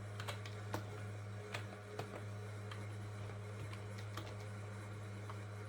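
Computer keyboard keys pressed in scattered, irregular clicks while moving through BIOS setup menus, over the steady hum of a running late-90s PC whose CPU fan is very loud.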